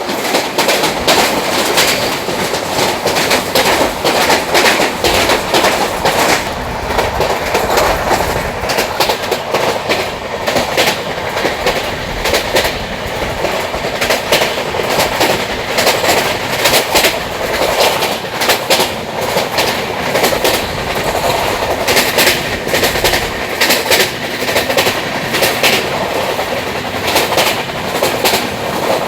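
A moving train's wheels running on the track: a steady rattling noise with many sharp clicks and clacks as the wheels pass over rail joints.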